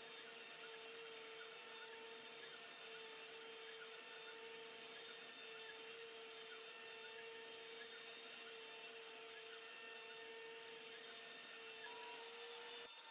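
Creation Station CNC router spindle running with a steady whine while cutting pockets in hardboard. The whine stops abruptly just before the end.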